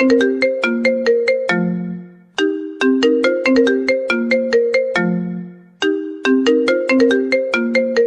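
Mobile phone ringtone melody: a short phrase of quick, bright struck notes ending on a held low note, looping about every three and a half seconds.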